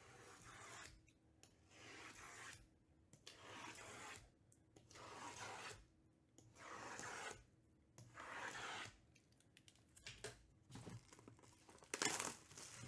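Faint swishes of shrink-wrapped cardboard boxes sliding and rubbing against each other, in about six strokes each about a second long. Near the end comes a louder crackle of cellophane wrap tearing as a box is unwrapped.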